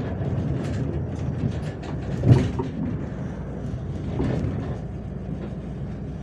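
Interior of a moving MAZ-105 articulated city bus: steady engine and road rumble with light rattles and clicks from the body, and a louder thump about two seconds in.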